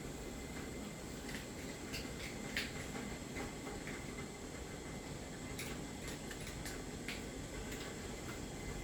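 Quiet, steady room background with a few faint, scattered clicks and taps.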